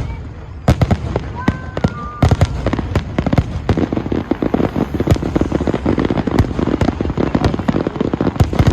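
Fireworks display: sharp bangs and rapid crackling, sparse at first and dense from about two seconds in, with a few short whistles between the first bursts.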